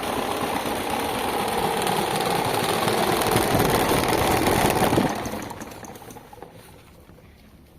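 Electric fan with a broken blade running, a steady motor-and-blade noise that grows slightly louder, then dies away over about two seconds starting around five seconds in.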